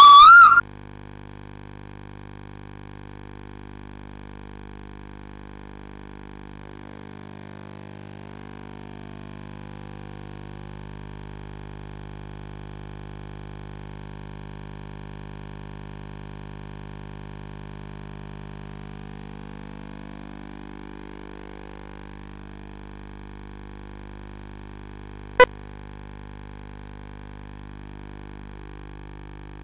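Steady electrical mains hum. A loud warbling whistle-like tone cuts off about half a second in, and a single sharp click comes near the end.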